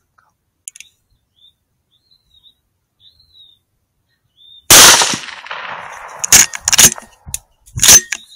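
A single loud shot from a .17 WSM rimfire rifle about halfway through, with a decaying ring after it. Several sharp clicks follow over the next three seconds.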